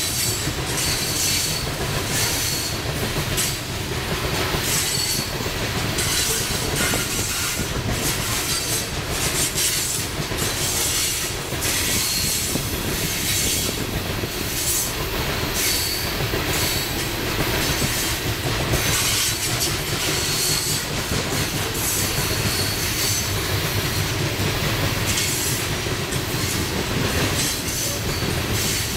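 Hopper cars of a Union Pacific coal train rolling past at speed: a steady rumble of steel wheels on rail, with repeated clicks over rail joints and on-and-off high-pitched wheel squeal.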